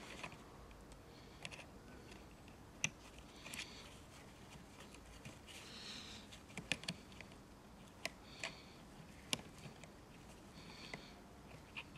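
Faint, irregular small clicks and brief rustles of gloved hands working a fuel hose back onto a chainsaw carburettor.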